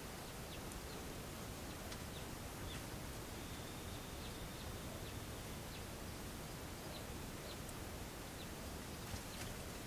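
Steady hiss from a trail camera's microphone, with a few faint scattered clicks and ticks.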